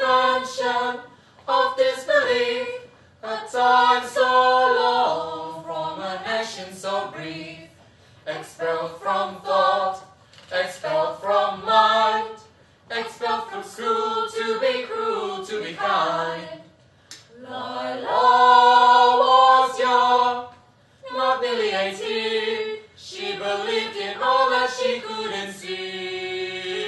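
A small mixed group of voices singing a cappella in harmony, in short phrases broken by brief pauses, with a long held chord about eighteen seconds in and another sustained chord near the end.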